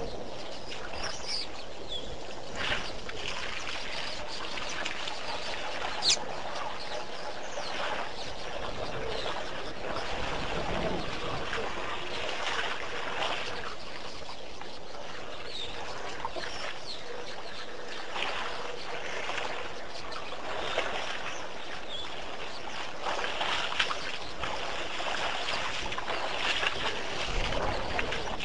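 Elephant herd at a waterhole: water sloshing, splashing and trickling in irregular surges as the elephants drink, with an occasional bird call and a sharp click about six seconds in.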